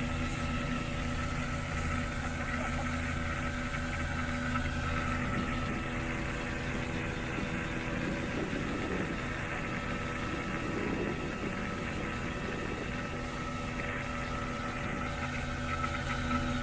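Mercury outboard motor running steadily at speed, with a steady rush of water and wind.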